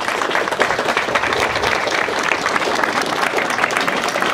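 A crowd applauding: many hands clapping in a steady, dense patter.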